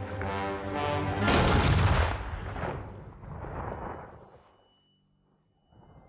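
Gunshots: two sharp cracks within the first second, then a louder shot about a second and a half in whose echo dies away over the next three seconds.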